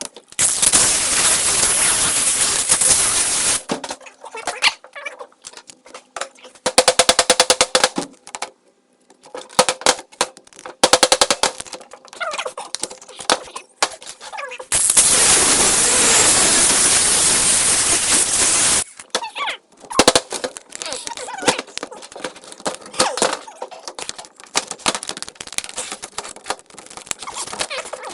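A power cutting tool biting into a Canon PowerShot S45 compact camera's body in bursts: two long harsh cuts of a few seconds each, with rapid rattling and shorter grinding bursts between.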